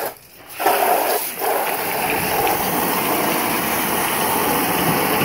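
A garden hose nozzle sprays water, in short bursts at first and then as a steady hiss of spray from about a second and a half in. An Old English bulldog vocalizes as he goes after the jet.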